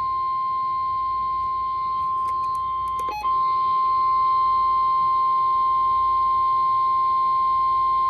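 Emergency alert tone: the single steady 1050 Hz National Weather Service warning alarm that announces a weather warning, sounding over a weather radio. About three seconds in it breaks briefly with a few clicks, then carries on slightly louder.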